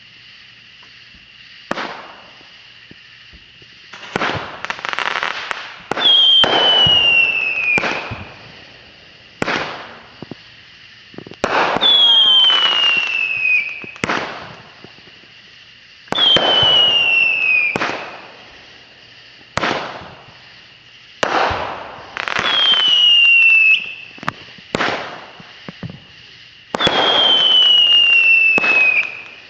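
Consumer fireworks going off in quick succession: sharp cracks and loud bursts with crackling about every five seconds, several of them trailed by a falling whistle.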